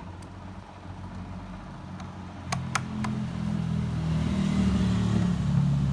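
Engine running steadily, getting louder from about halfway through, with three sharp clicks just before it swells.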